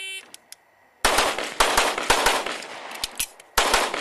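Electronic shot-timer start beep, then about a second later rapid pistol fire: quick strings of shots with a short gap about three and a half seconds in.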